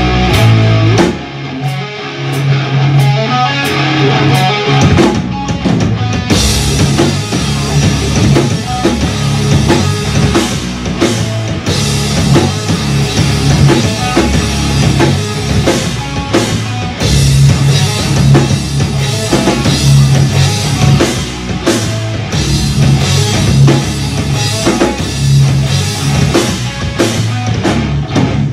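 Live rock band playing loud: electric guitar, bass guitar and drum kit together. The drums open up with cymbals about six seconds in and the full band keeps a driving rhythm from there.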